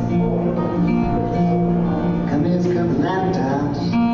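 Acoustic guitar music playing, with held notes and chords.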